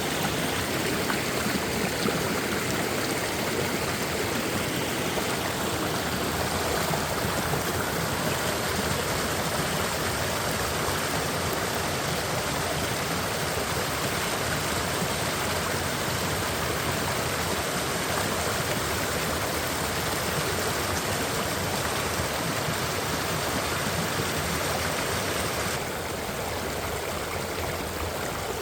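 Valley stream water rushing steadily. About 26 seconds in it becomes a little quieter and less hissy.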